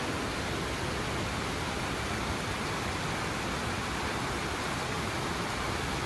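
Steady rush of fast-flowing floodwater.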